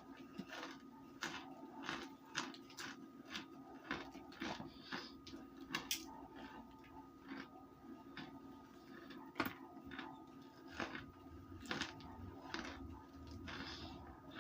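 Someone crunching and chewing pieces of dried, cooked cornstarch: irregular sharp crunches, a few a second, over a steady low hum.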